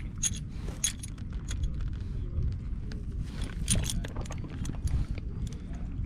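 Scattered metallic clinking and jingling of heavy horses' harness chains and fittings, over a steady low rumble.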